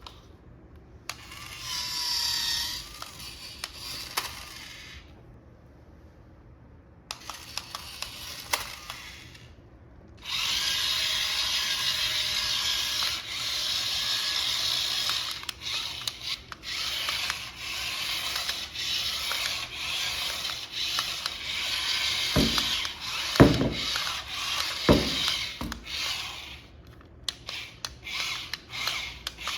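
Small electric motor and plastic gears of a toy RC car whirring, briefly at first and then steadily for a long stretch, with a few sharp knocks near the end.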